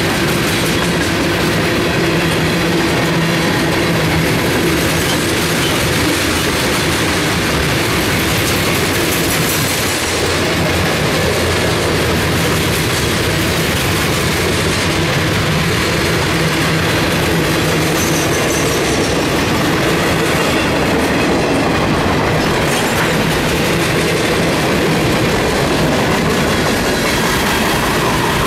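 Freight cars of a CSX train (tank cars and covered hoppers) rolling past close by: a steady, loud noise of steel wheels running on the rails, with no locomotive engine in it.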